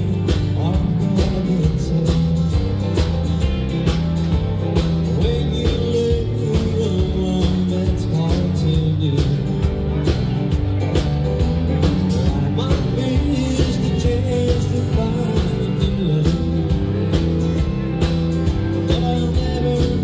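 Live country band playing a mid-tempo song: electric guitar, bass guitar and drum kit keeping a steady beat, with keyboard and pedal steel guitar.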